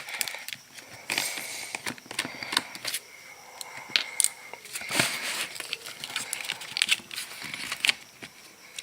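Scattered light clicks, taps and short scrapes of hands and a tool working inside an opened laptop's case.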